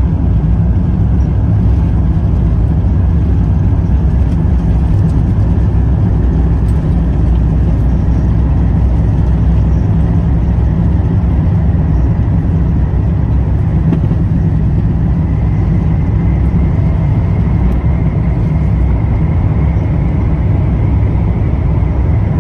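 Airbus A350-1000 takeoff heard from inside the cabin: the Rolls-Royce Trent XWB-97 engines at takeoff power, with a loud, steady rumble through the takeoff roll and liftoff. A faint whine rises slowly in pitch in the second half.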